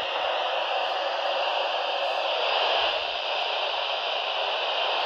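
Steady hiss of radio static from a weather radio receiver, with no voice coming through.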